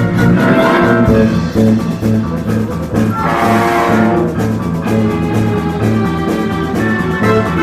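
Theatre orchestra playing a musical-comedy overture: brass carries the tune over a steady, pulsing bass beat, swelling up about three seconds in.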